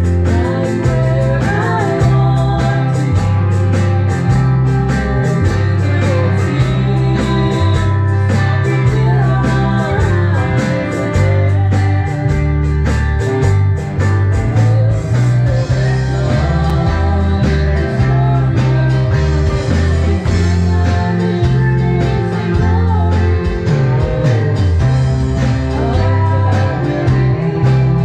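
Live band playing: electric guitar, electric bass and a drum kit with cymbals, the bass line strong and steady throughout.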